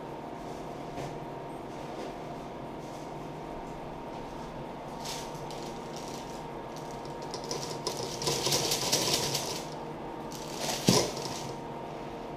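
Baking paper crinkling and rustling as a freshly baked focaccia is handled on its tray, loudest from about seven and a half to ten seconds in, followed by a single sharp knock about eleven seconds in, with more rustling around it. A steady low hum underneath.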